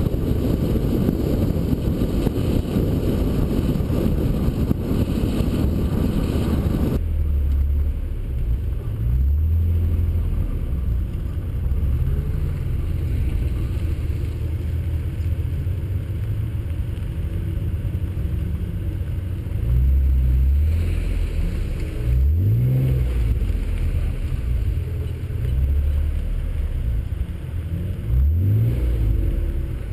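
Acura NSX's V6 engine driving on the road, first buried under heavy wind and road rush that cuts off abruptly about seven seconds in. After that the engine note is plainer, and the revs climb sharply twice near the end as the car accelerates.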